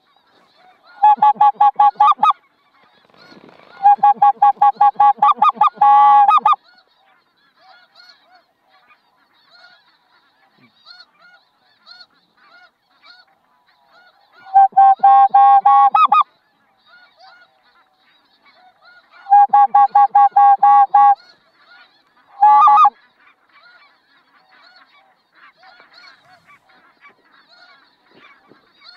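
Geese honking: five loud bursts of rapid, evenly repeated honks, the last very short, with the fainter scattered calling of a flock of snow and Ross's geese in the gaps.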